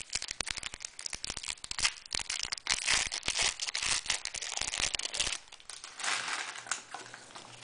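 Foil trading-card pack wrapper being torn open and crinkled: a dense crackling for about five seconds, then softer rustling.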